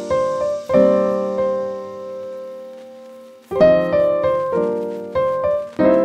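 Background piano music: gently struck chords and notes that ring and fade, with one long decaying chord through the middle before new notes come in.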